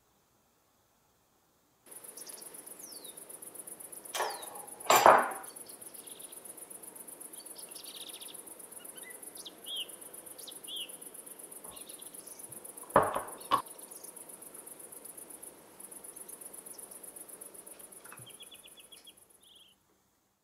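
Steady, high-pitched insect chirring with a few bird chirps over it. A metal spoon clinks against a jar or a glass jug as ingredients are spooned in: loudest about five seconds in, then twice in quick succession about thirteen seconds in.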